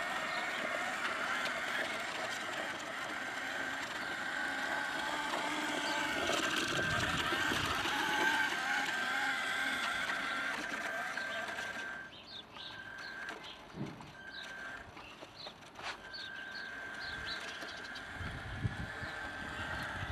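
Steady thin whine of the electric drive motor in a radio-controlled Pegaso 1086 scale truck model as it drives; about twelve seconds in the overall noise drops and the whine comes and goes. Birds chirp in the background in the second half.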